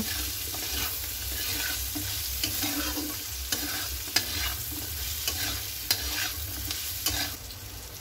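Metal spatula scraping and clacking against a kadhai as fried paneer and potato pieces are stir-fried with capsicum and onion, over a steady sizzle. The strokes are irregular and stop near the end.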